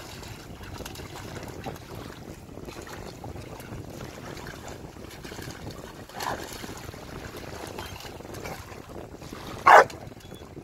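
Wind on the microphone and water splashing as two dogs play in the shallows. A little under a second before the end comes a single short, loud bark from one of the dogs.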